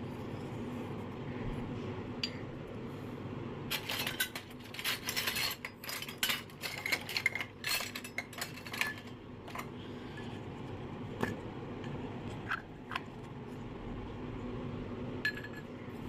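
Miniature stainless-steel toy cups and bowls clinking and tapping as they are handled and set down on a concrete floor: a run of quick metallic clinks about four to nine seconds in, then a few single taps.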